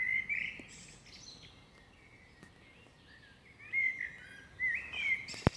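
Small birds chirping: short, warbling, gliding chirps in a burst at the start and again in several phrases from about three and a half seconds in. A single sharp click, the loudest sound, comes just before the end.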